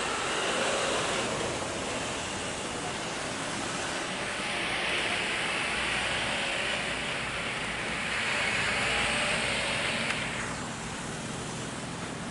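Twin-engine jet airliner on final approach, its engines a steady distant roar with a hiss that swells from about four seconds in and eases a little after ten seconds.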